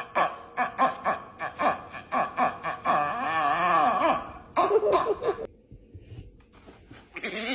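A dog's warbling 'woo' vocalising: a quick run of short choppy sounds, then a long wavering, wobbling call about three seconds in, a shorter one a second later, and another starting near the end.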